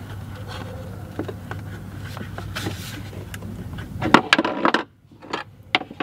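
Plastic golf cart dash panel and its wire connectors clicking and knocking as it is handled, with a cluster of louder knocks and clicks about four seconds in. A low steady hum runs underneath.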